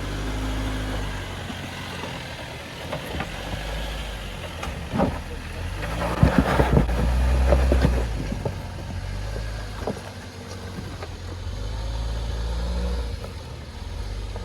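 Off-road Jeep engine working at crawling speed over rock, swelling with throttle about six to eight seconds in and again near the end. A few sharp knocks land about five to seven seconds in.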